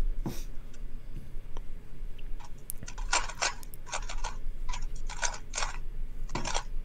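Short bursts of quick, sharp clicking, a few clicks at a time, coming in clusters about every half second from roughly two and a half seconds in, with only faint ticks before that.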